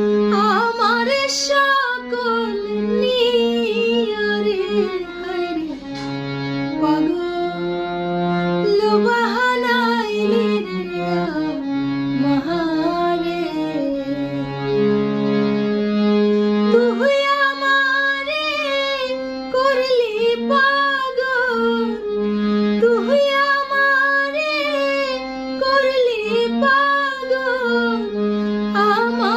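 A woman singing a Bengali song, her melody bending and sliding in pitch, over a harmonium holding sustained reed notes that change every second or two beneath the voice.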